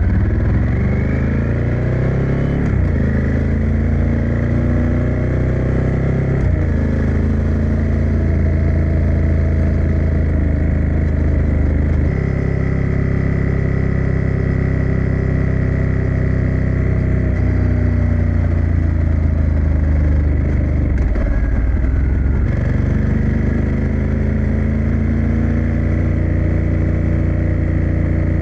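Ducati Scrambler 1100 Tribute Pro's L-twin engine on the move, pulling up through the gears: the pitch climbs and drops at each of about three shifts. Past the middle the revs fall away as the bike slows, then it picks up again and holds a steady pace.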